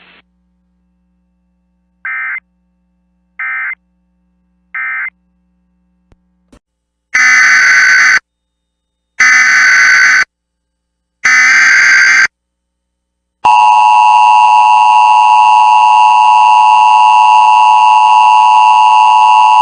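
Emergency Alert System signalling. Three short, fainter beeps are followed by three loud, raspy one-second bursts of the digital SAME header, a second apart. Then the loud, steady EAS attention tone starts and holds.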